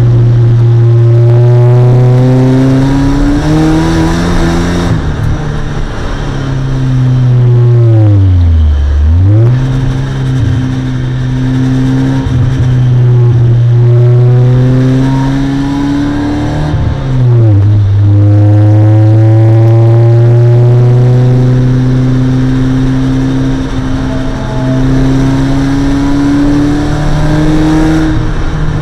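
In-car sound of a Mazda MX-5's 1.6-litre four-cylinder engine run hard on track, held at high revs with the pitch slowly climbing. The revs drop sharply twice, about 8 seconds in and again around 17 seconds, as the driver lifts and shifts, then climb again. Road and wind noise sit underneath.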